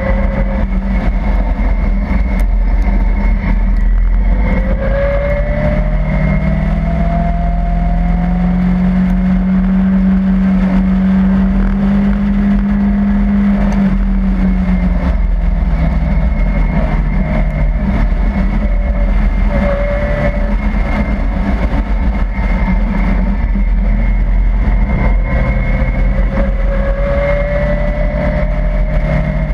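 Caterham Seven's engine running under load while lapping a circuit, heard from inside the open cockpit over heavy wind rumble. The engine note rises slowly from about four seconds in, holds, and eases back down after about fourteen seconds.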